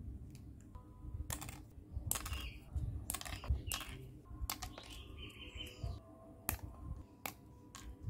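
Scissors snipping small pieces from a thin white sheet: a string of sharp, irregular snips and clicks, over faint background music.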